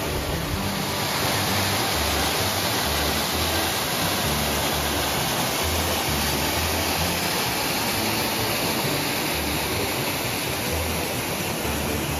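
Waterfall on a rocky mountain stream, water rushing and splashing steadily over the rocks. Low bass notes of background music run faintly underneath.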